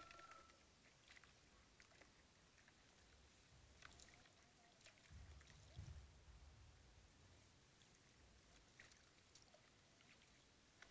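Faint splashing and sloshing of feet and hands in shallow muddy paddy water, with scattered small clicks and a low rumble about halfway through.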